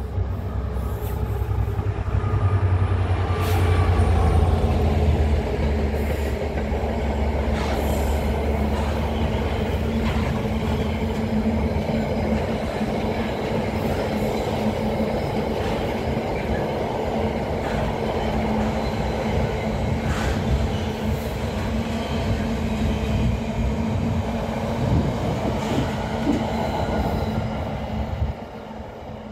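Freight train of open box wagons passing through a station: a heavy low rumble from the locomotive in the first few seconds, then a long steady rumble and clatter of wagon wheels over the rails with a steady hum. The noise drops away sharply near the end as the last wagon goes by.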